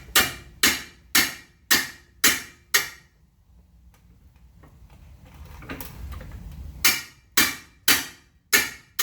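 Hammer tapping a bolt through the rear axle mount to drive it in: six sharp blows about two a second, a pause of about three seconds, then another run of blows near the end.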